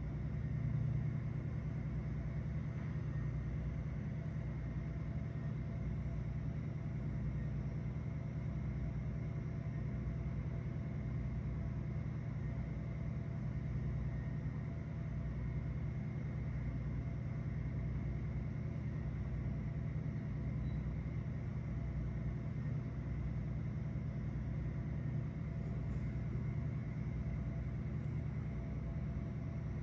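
Steady low rumbling drone of a running vehicle, even throughout, with faint steady tones above it.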